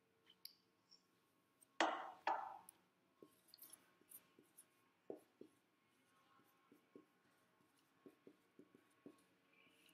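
Faint handling of a marker at a desk: two sharp knocks about two seconds in, then scattered light taps and ticks.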